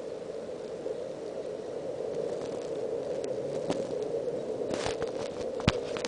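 Steady outdoor background hiss, with a few sharp clicks and a brief rustle from the handheld camera being handled.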